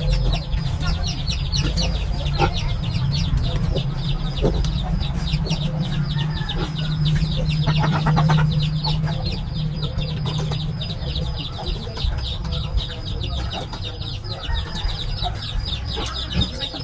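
Chickens clucking, with many rapid, short, high-pitched chirps over a steady low hum.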